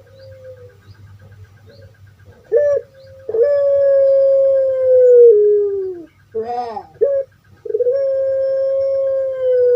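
Puter pelung dove (Streptopelia risoria) cooing. A short note comes first, then two long drawn-out coos, each held on one steady pitch and sliding down at the end, with a brief quavering call between them.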